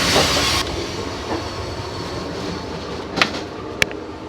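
Amtrak passenger train rolling, heard from aboard. A loud rushing noise cuts off abruptly less than a second in, leaving a lower steady rumble. Two sharp clicks come near the end.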